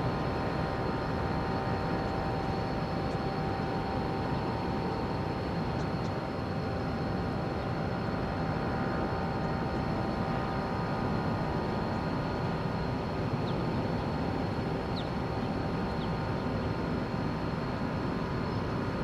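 Steady machinery drone from the departing roll-on roll-off car carrier, its engines and ventilation fans heard across the harbour, with several thin held tones over a low rumble.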